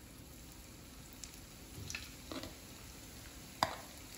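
Almond briouates in warqa pastry frying in a pan of hot oil: a soft, steady sizzle with a few sharp pops and crackles, the loudest a little past halfway.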